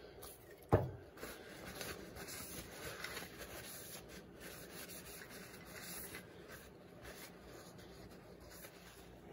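Faint rubbing as the rusty steel tube of a Western Auto Revelation air rifle is wiped down with a paper towel, with one sharp click about a second in.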